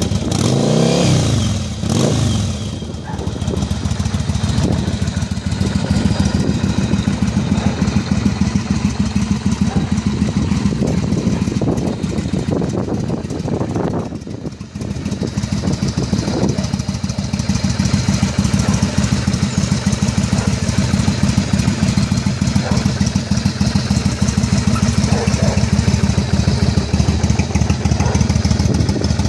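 1994 Yamaha Virago's air-cooled V-twin engine blipped once or twice near the start, its pitch rising and falling back, then idling steadily with a fast, even run of exhaust pulses.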